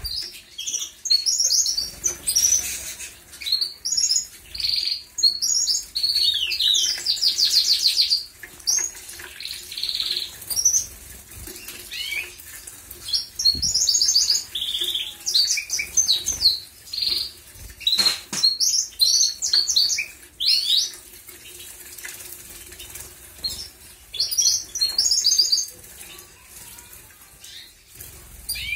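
Canaries bathing in a shallow dish of water: wings flutter and splash in quick bouts, with many short high chirps and snatches of trilling song, one long rapid trill a few seconds in.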